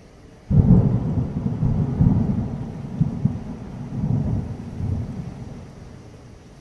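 A clap of thunder breaks suddenly about half a second in, then rumbles on in several rolls that die away over about five seconds, over the steady hiss of heavy rain.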